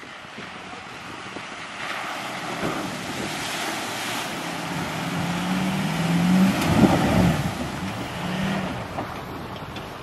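Ford Super Duty pickup revving as it drives through a muddy puddle, water splashing and spraying off the tyres. The engine note rises and falls through the second half, and the splashing is loudest a little past halfway.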